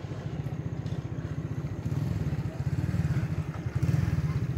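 A small engine running close by, a steady low throb with a fast even pulse.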